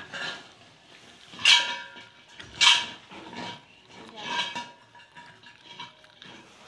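A small steel bowl clanking as a monkey knocks it about on a rope cot: three loud clanks over about three seconds, each ringing briefly, then lighter scraping.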